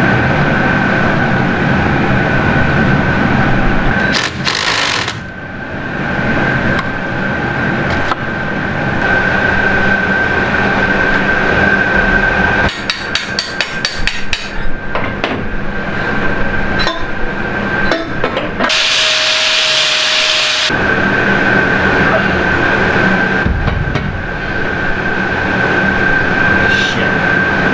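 Hand-tool work on metal portholes: a wrench turning mounting bolts, with a cluster of sharp metal clicks and clinks in the middle, over a steady mechanical hum that drops out briefly a few times.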